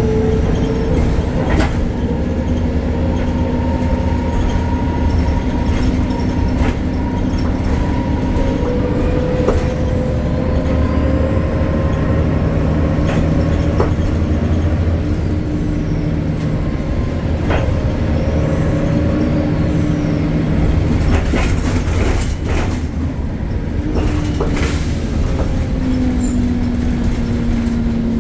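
BredaMenarini Avancity Plus city bus with a Deutz Euro 5 diesel running under way, a steady drone with tones that slowly rise and fall in pitch as it speeds up and slows. Faint high whistles glide in and out, and a run of clicks and rattles comes near the end.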